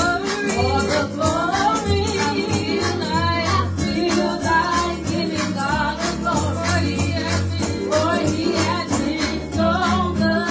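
Two women singing a gospel song through handheld microphones over backing music with a bass line and a steady rattling beat.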